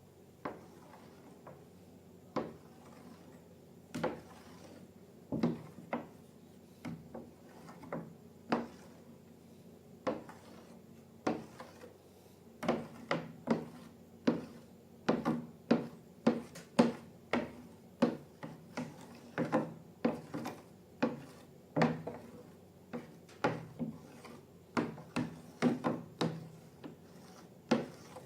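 Slime being worked and mixed by hand, giving irregular sharp clicks and sticky taps, sparse at first and coming quickly, several a second, from about halfway through.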